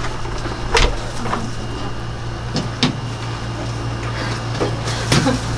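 Clothes hangers being handled on a wooden hanging rail: a few sharp clicks and knocks of hooks and hangers, over a steady low hum.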